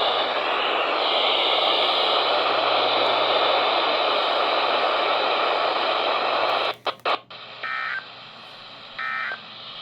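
Steady static hiss from a NOAA Weather Radio broadcast that briefly breaks up about seven seconds in. Then come two short bursts of the Emergency Alert System's digital data tones, the end-of-message code that closes an alert.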